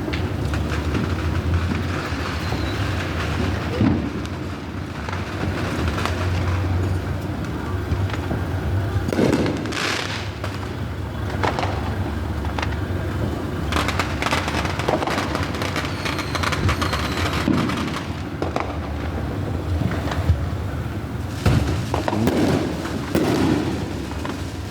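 Fireworks going off one after another: many sharp bangs and crackling pops over a constant low rumble, with thicker clusters of bursts partway through and near the end.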